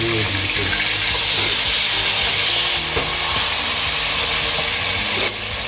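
Onions frying in hot oil in a stainless steel pot, a steady sizzle, as chopped garlic is scraped in from a plate and stirred with a wooden spatula.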